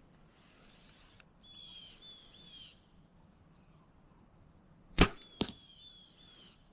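A bow shot: a sharp crack of the bow's release, then a second sharp crack about half a second later as the arrow strikes. A bird calls before and after in short repeated falling chirps.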